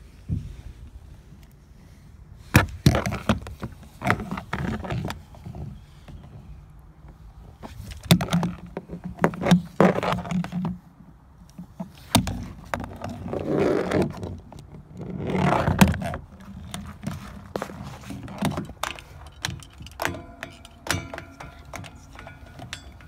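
Irregular knocks, clatter and scrapes of toy figures being handled and moved on wood chips and playground equipment. Near the end a steady tone with several pitches joins in.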